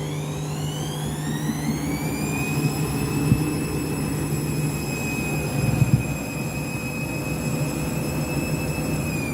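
Candy washing machine's motor and drum spinning up, the whine rising over the first couple of seconds, then holding at a steady high pitch over a low hum, with a couple of knocks about three and six seconds in. Near the end the whine starts to fall as the spin winds down in a heavy sudslock.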